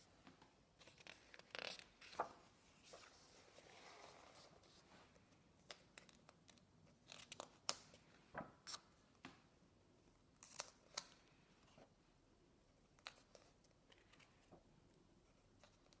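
Faint paper rustles and short crisp flicks as the pages of a colouring book are turned by hand, a few at a time and unevenly spaced.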